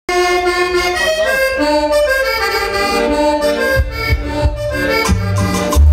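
Latin dance track played over a sound system, opening with an accordion melody alone; a bass line and beat come in about four seconds in.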